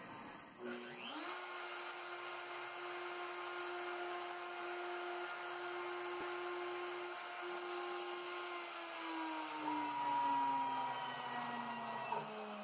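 CNC router spindle with a small straight bit spinning up with a rising whine, running steadily while it drills a locating hole at the 0,0 point in the wooden spoil board, then winding down in pitch over the last few seconds.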